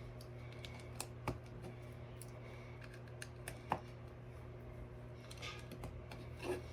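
Small plastic building bricks clicking as 1x2 flat pieces are handled and pressed into place: a few scattered light clicks over a steady low hum.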